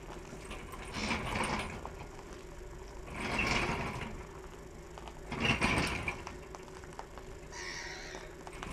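Rusty front section of a Land Rover Defender chassis, on its axle and wheels, pushed by hand across concrete in about three heaves, each with a rough burst of metal creaking and scraping and wheels rolling, then a fainter scrape near the end.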